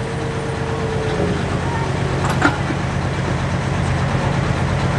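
John Deere 4455 pulling tractor's diesel engine idling steadily after a pull. A thin whistle fades out about a second in, and there is one sharp click partway through.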